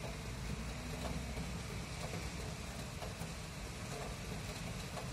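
Steady rain falling over a city, with the low rumble of distant street traffic beneath it and faint scattered ticks of drops.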